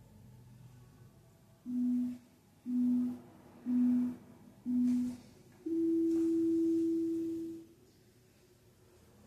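Workout interval timer beeping the end of an exercise interval: four short, low beeps about a second apart, then one long, higher beep.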